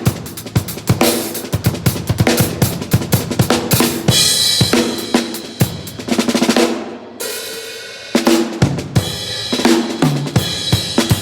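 Acoustic drum kit played in a busy beat of kick, snare, hi-hat and cymbals, a drummer's sound check. Around the middle a cymbal rings out and the beat thins for a second or two, then the full kit comes back in with a low tom stroke.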